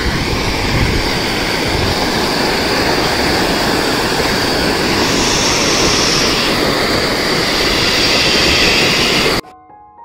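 Water rushing and churning over a concrete weir's spillway, a loud steady roar of white water. It cuts off suddenly near the end, giving way to soft piano music.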